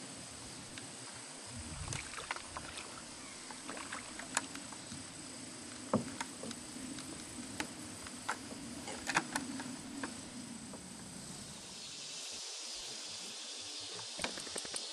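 Scattered light knocks and clicks of handling on a plastic kayak as a freshly caught channel catfish is held aboard, over a steady low hum. About twelve seconds in, the hum gives way to a steady hiss, with a few more clicks near the end.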